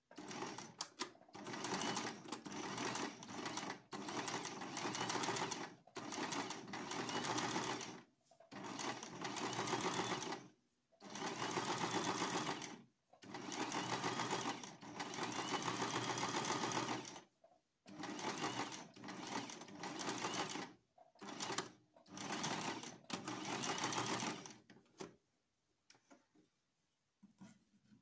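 Janome MX 55 electric sewing machine stitching a seam, run in spurts of one to five seconds with short stops between, falling silent a few seconds before the end apart from a few faint clicks.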